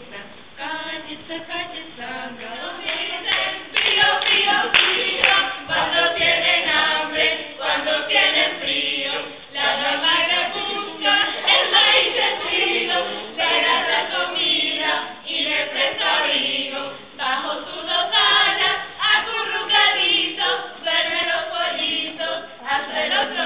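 A group of young voices singing a song together, unaccompanied.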